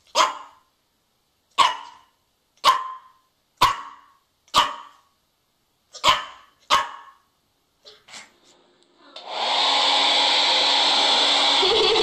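A puppy barking in short, sharp single barks, about seven of them a second or so apart. About nine seconds in, a hair dryer switches on and runs with a loud, steady blowing noise.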